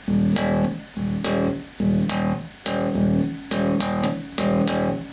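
Handmade Rickenbacker-style electric bass with homemade humbucking pickups, played through an amplifier: about eight picked notes and chords in a loose rhythm, each ringing briefly before the next.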